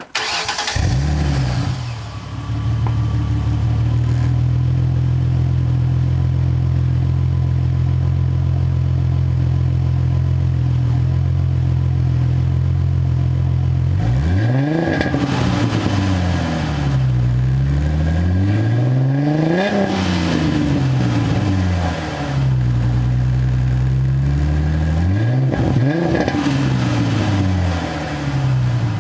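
2007 Ford Mustang's 4.0-litre V6 running through newly fitted dual Flowmaster mufflers. It starts and flares, then settles into a steady idle. Later it is revved three times, each rev rising and falling back to idle.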